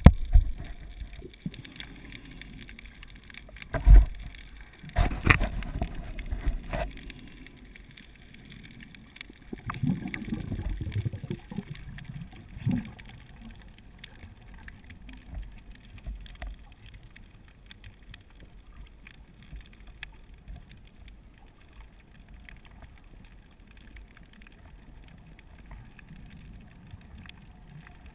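Underwater sound of a scuba diver's exhaled bubbles rumbling from the regulator in bursts a few seconds apart, with a sharp knock about four seconds in. The bursts grow fainter in the second half, leaving a low hiss.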